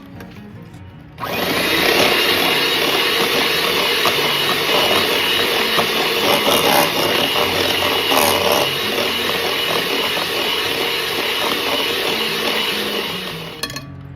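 Electric hand mixer running at a steady speed, starting about a second in and stopping near the end, beating eggs and vanilla into a creamed butter, sugar and oil mixture.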